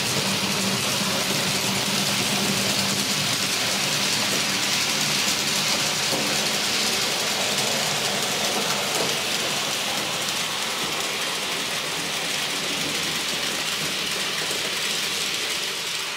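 TT-scale model train of Roco tank wagons rolling past on the track: a steady rushing rattle of the wagons' wheels on the rails, with the locomotive's motor hum fading over the first few seconds.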